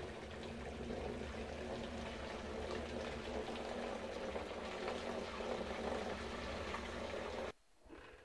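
Cow urine poured in a steady stream from a plastic pot into a blue plastic drum, splashing and gurgling into the liquid inside. The pouring sound cuts off suddenly near the end.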